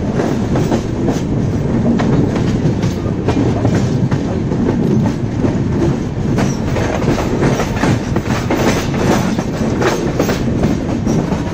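Express train with LHB coaches running along the track: a steady, loud rumble with wheels clacking over rail joints.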